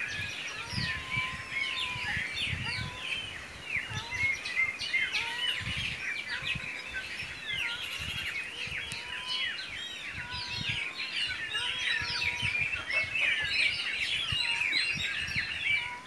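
A dense chorus of many songbirds chirping and twittering continuously, with a few longer, lower whistles mixed in.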